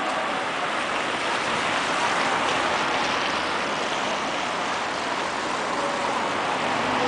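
Steady hiss of a wet, slush-covered city street, the kind of noise made by traffic and tyres on slush.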